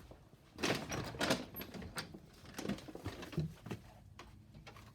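Footsteps, about one every two-thirds of a second, mixed with clicks and knocks from handling, in a small room.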